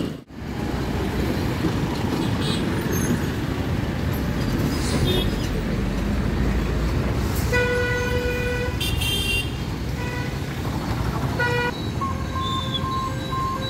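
Road traffic with a bus, a truck and motorbikes passing close, and vehicle horns honking several times: one long honk a little past the middle, short ones after it, and another horn held near the end.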